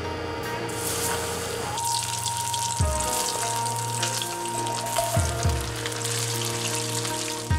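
Floured chicken pieces deep-frying in a saucepan of hot oil: a dense, steady sizzle that sets in about a second in as the pieces go into the oil. Background music plays over it.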